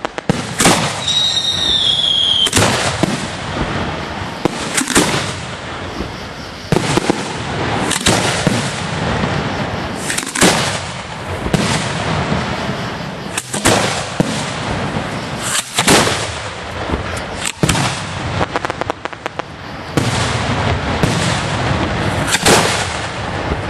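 Aerial fireworks going off in quick succession from close by: a steady run of sharp bangs and crackle with no pause. About a second in, a high whistling firework sounds for about a second and a half.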